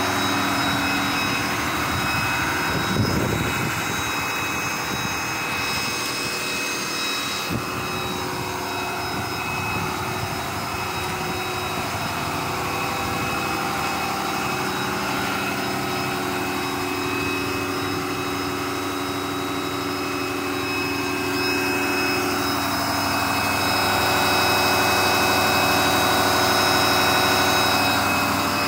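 Ford F650 rollback truck's engine idling steadily, with a constant whine running through it. It grows a little louder near the end.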